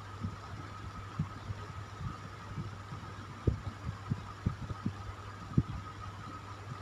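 Electric fan running with a steady hum and a faint higher whine, over which come short, irregular low thumps, two of them louder, about halfway through and near the end.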